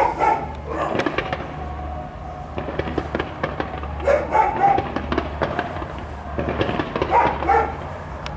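Distant fireworks display: a steady run of sharp pops and crackles from bursting shells and crackling stars. A few short, pitched calls stand out at the start, about four seconds in and again about seven seconds in.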